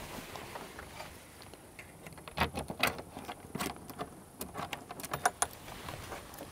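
Metal latches on a hard-shell rooftop tent being unclipped by hand: a run of irregular clicks and clacks, loudest and closest together in the middle.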